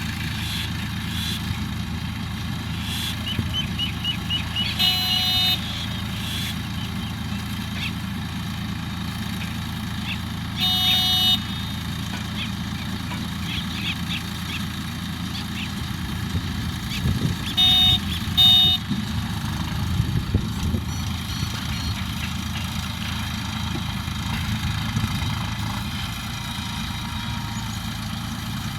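A tractor engine running steadily, driving a straw baler. Short horn-like beeps sound about 5 s and 11 s in, and twice about 18 s in.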